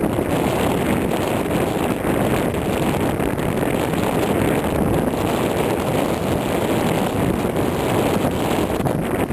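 Wind blowing on the camera microphone: a loud, steady, deep rush that never lets up.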